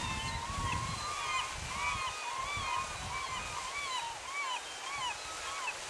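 A gull calling a long run of short, arched notes, about two or three a second, over the steady rush of a waterfall.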